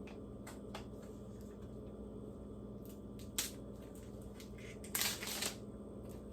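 Plastic protective film being peeled and crinkled off a new hair dryer: a few light clicks, then a short crinkling rustle about five seconds in, over a steady low hum.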